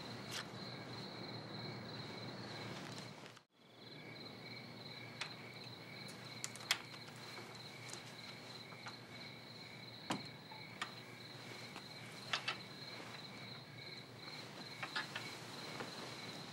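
Quiet night ambience of crickets chirping in a steady pulsing trill, with a few light clicks and taps over it. The sound cuts out for a moment about three and a half seconds in.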